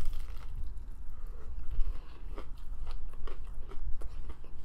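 Close-miked eating: biting into and chewing crunchy fried food, with irregular crunches and wet mouth clicks.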